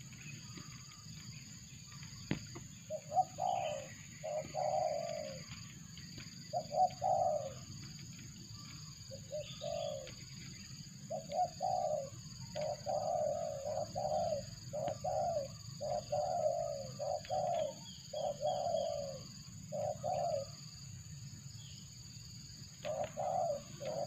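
Spotted dove (terkukur) cooing: short, low coo notes in repeated phrases, starting about three seconds in and going on until shortly before the end, with one more phrase near the end. This is the call of a decoy dove used to lure wild spotted doves.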